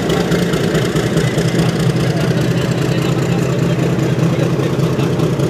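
Diesel locomotive engine running steadily at close range, a constant low hum.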